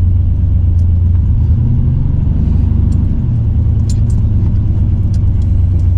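Turbocharged Chevrolet Silverado pickup's engine running with a steady low drone, heard from inside the cab; its pitch lifts slightly for a couple of seconds in the middle.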